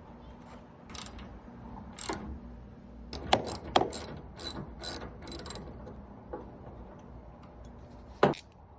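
Hand ratchet wrench clicking in short, irregular strokes as a part is fastened back in place, with one sharper metallic click near the end.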